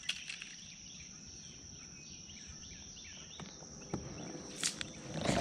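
A steady, high-pitched insect drone from crickets or katydids, with faint bird chirps. A few soft clicks and knocks come about four seconds in and near the end.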